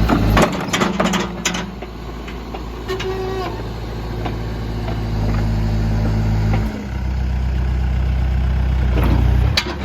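Case 580 Super M backhoe's turbo diesel engine running steadily, its note shifting about half a second in and again about seven seconds in. A few clanks and knocks of the machine working come in the first second or two.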